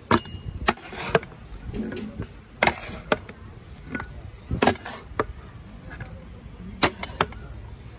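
Large perforated metal ladle (kabgir) knocking and scraping against the rim and sides of a big aluminium cooking pot as a pot of cooked mutton biryani rice is turned over. There are about eight sharp knocks at uneven intervals.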